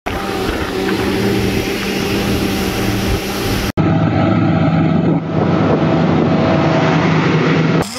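Twin Yamaha 300 outboard motors running a boat at speed: a loud, steady drone with the rush of wake and wind over it. It drops out for an instant just under four seconds in, then the steady drone carries on, duller.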